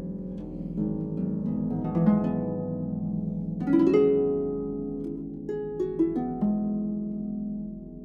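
Concert pedal harp played solo: plucked notes ringing out over a sustained low note, with a quick upward run of notes about halfway through and a few more plucked chords later on.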